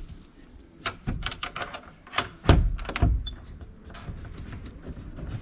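A rabbit cage door being shut and latched: a series of knocks and clatters, with a heavy thud about two and a half seconds in.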